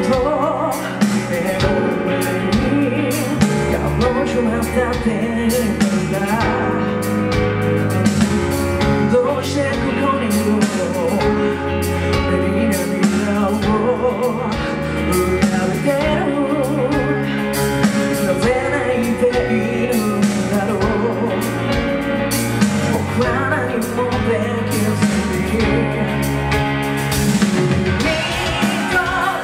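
Live rock band playing a song, with a lead vocalist singing over electric guitar, bass and drums.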